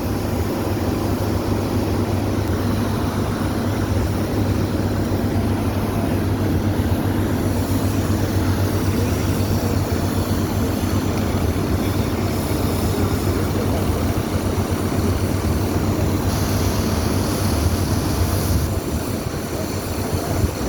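Steady low drone of a heavy machine's engine running continuously.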